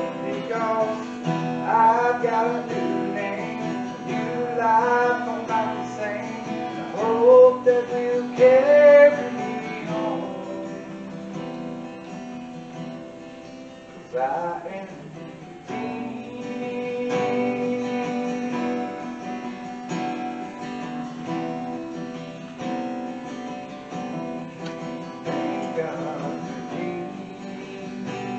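Acoustic guitar played steadily, strummed chords accompanying a man singing, the voice strongest over the first ten seconds or so and returning in short phrases later.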